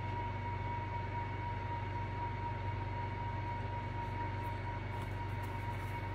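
Steady low electrical hum with a thin constant whine and faint hiss: background noise of the recording room. The stopper pressed into the glue makes no clear sound.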